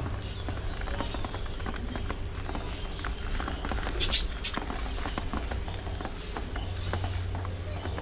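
Budgies pecking and cracking seed on a plastic feeding tray, a dense patter of small clicks. Budgie chatter runs alongside, with one short, high, shrill call about four seconds in.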